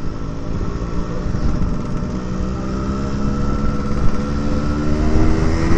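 Yamaha RX-King two-stroke single-cylinder engine running under way, its exhaust note rising steadily in pitch as the bike gradually picks up speed, over a low rumble. The raspy note comes from the stock muffler, whose baffle has been replaced by a long iron pipe.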